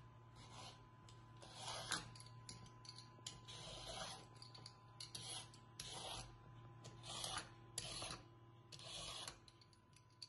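Y-shaped vegetable peeler scraping down a raw carrot, one short faint stroke about every second.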